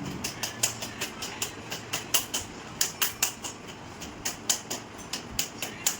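A rapid, uneven series of sharp clicks or taps, about four a second, some much louder than others.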